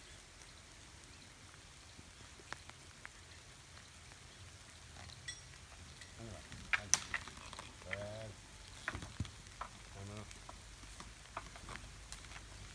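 Scattered sharp knocks and clicks, the loudest about halfway through, as wooden ox-yoke gear and a pole are handled at a wooden gate. A few short vocal sounds come in the middle, over a faint steady hiss.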